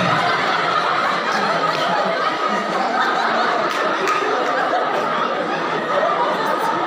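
A crowd laughing and chattering, many voices overlapping.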